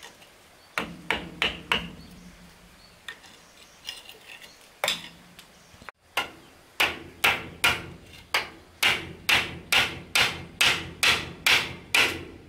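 Hammer striking, nailing wooden wall boards: a quick group of four blows about a second in and a few scattered knocks, then from about halfway a steady run of evenly spaced blows, about two and a half a second.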